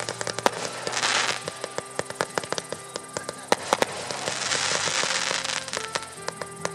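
Fireworks fired from the ground in a rapid string of sharp cracks and pops, with two stretches of hissing, about a second in and again midway. Steady music plays underneath.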